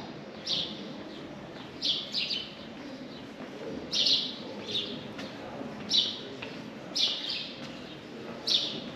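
A small bird chirping: short, sharp high chirps repeated about once a second, over a low background murmur.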